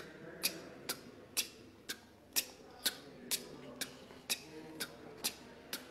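Steady clock-like ticking, about two sharp ticks a second, evenly spaced, marking time passing.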